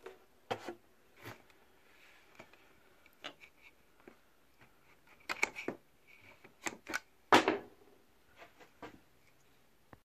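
Irregular clicks, taps and knocks of things being handled and set down, the loudest about seven and a half seconds in.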